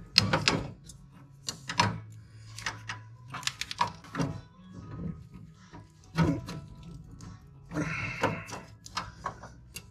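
Irregular metal clicks and knocks as pliers and a steel clutch pedal return spring scrape and tap against the clutch pedal and its bracket, while the spring is stretched toward its hook.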